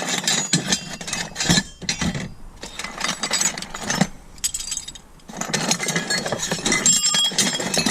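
Pieces of scrap metal and old hand tools clinking and clattering as a box of them is rummaged through and sorted: a rapid, irregular run of metallic knocks with short rings, easing briefly about halfway through.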